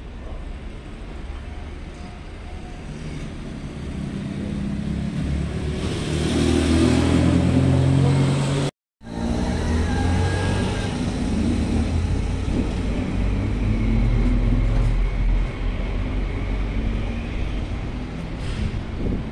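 Street traffic: a motor vehicle's engine running close by, growing louder over several seconds, with steady road noise. The sound cuts out completely for a moment about nine seconds in, then the traffic noise carries on.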